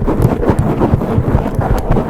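Long fingernails scratching fast and hard directly on a Zoom H6 microphone: a continuous, mostly low-pitched rough scratching made of many quick strokes.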